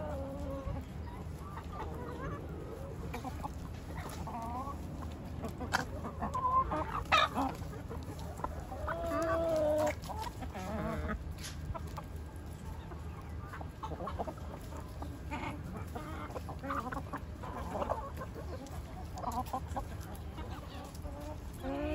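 A flock of hens and roosters clucking as they feed, with many short calls throughout and one longer drawn-out call about nine seconds in.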